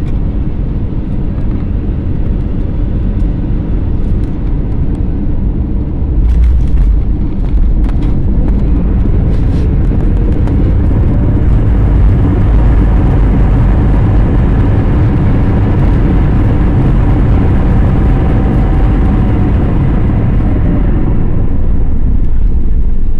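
Cabin noise of an Airbus A321neo LR on landing: a loud, steady rumble of engines and airflow. About six seconds in it jumps louder, with a few knocks and rattles, as the wheels touch down, and the heavy rumble of the runway rollout follows.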